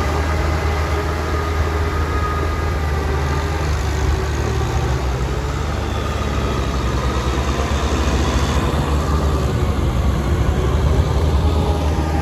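Diesel engine of a Kubota M6040SU tractor running steadily with a low drone as it drives a rotary tiller through deep mud.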